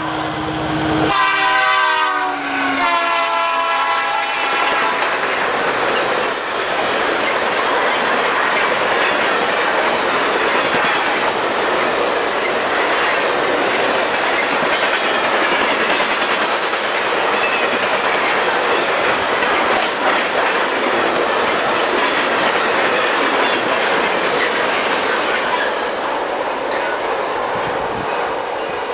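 Diesel freight train's air horn sounding: one blast ends about a second in, then a second blast drops in pitch as the locomotives pass. After that come the steady clatter and rumble of a long string of empty tank cars rolling by on the rails, easing slightly near the end.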